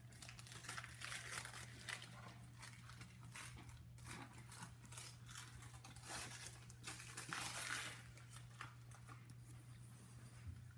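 Gift-wrapping paper being torn and crumpled off a small, tightly wrapped box by hand, in irregular rustling bursts.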